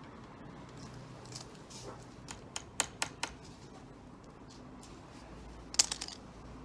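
Scattered sharp clicks and taps, a quick run of them around the middle and a louder cluster near the end, over a low steady background.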